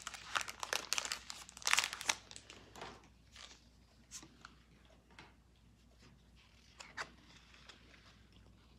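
Foil wrapper of a Pokémon Shining Fates booster pack being torn and crinkled by hand, dense crackling for about two seconds. After that come a few soft clicks of the trading cards being handled.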